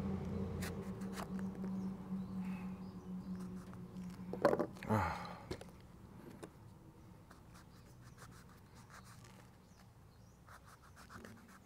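A knife cutting and scraping into the rind of a small pomelo, giving scattered light scratches and clicks, with one louder clatter about five seconds in. A low steady hum underneath fades out over the first half.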